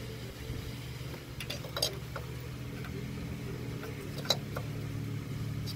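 A steady low hum, with a few short light clicks and taps of small parts and tools being handled during the A/C compressor clutch install.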